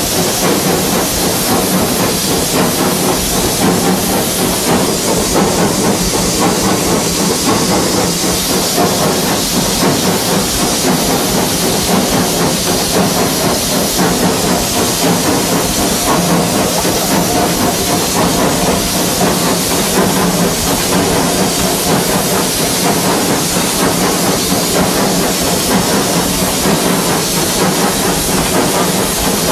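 Steam locomotive cab on the move: a steady hiss of steam over the continuous running noise of the engine and wheels.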